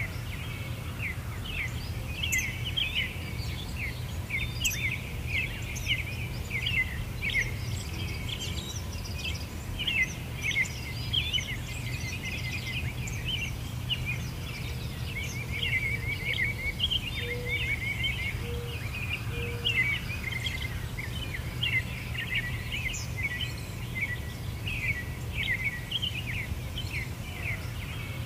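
Many small birds chirping and twittering in a dense, continuous chorus of quick, high notes, over a steady low background rumble, with three short lower notes about two-thirds of the way in.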